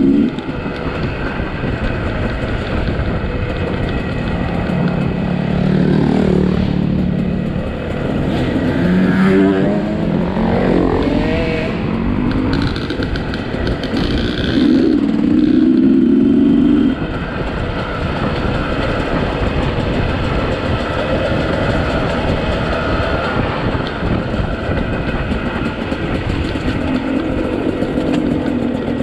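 Two-stroke dirt bike engine under way on a trail, its revs rising and falling several times as the rider works the throttle. It is loudest for a couple of seconds a little past the middle.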